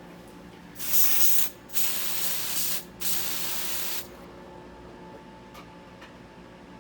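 Aerosol can of smoke-detector test spray hissing in three short sprays, the first the loudest, as canned test smoke is sprayed into a smoke detector to set it off.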